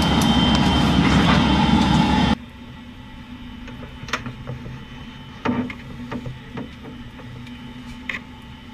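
A loud steady rushing noise that cuts off suddenly about two seconds in, leaving a quiet background with a few scattered knocks and taps as crew handle the big sprint car tyres around a trailer ramp.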